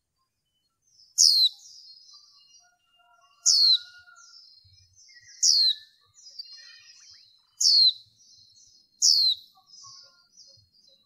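Female white-eye calling: five loud, sharp high calls that each sweep down in pitch, about two seconds apart, every one trailed by a softer high twitter. This is the hen's call that bird keepers play to rouse cock white-eyes.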